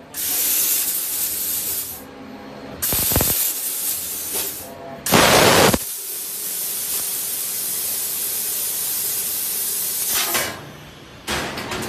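Hissing of gas blowing through the cutting head of a 1000 W fiber laser tube cutter, in several bursts of one to two seconds, then a steady hiss for about four seconds.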